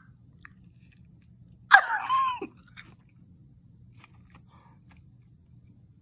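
A person chewing a bite of cicada on a piece of potato, with faint crunchy clicks. About two seconds in there is a short voiced exclamation with falling pitch, made through a full mouth.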